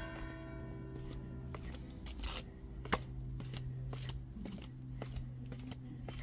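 Footsteps going down stone stairs, a light click about every half second, with one sharper click about three seconds in, over a steady low hum. A ringing tone with several overtones fades out over the first second and a half.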